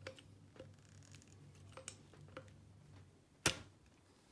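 Steel screwdriver shaft, pushed through the brass end cap of a Precihole PX100 PCP air rifle and used as a tommy bar, clicking and tapping against the metal as the cap is turned to unscrew it. A few light clicks, then one sharp, louder click about three and a half seconds in.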